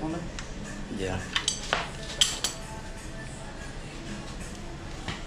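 Steel hand tools (a ratchet with extension and sockets) clinking and knocking against each other and a bare engine block: a few sharp metallic clinks between about one and two and a half seconds in, with quieter handling around them.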